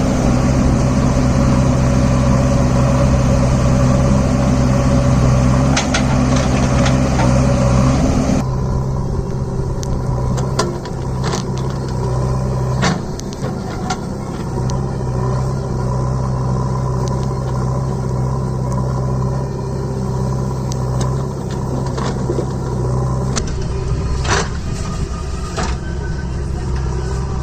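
Heavy diesel engine running steadily, with scattered sharp knocks. About eight seconds in the sound drops a little and its higher part falls away.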